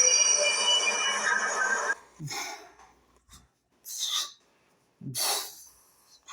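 Subway train noise with several high squealing tones, cutting off sharply about two seconds in. Then come four short breaths close to the microphone.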